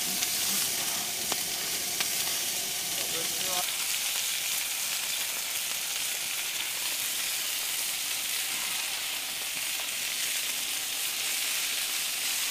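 Adana kebabs sizzling steadily as they fry in a pan over a wood fire.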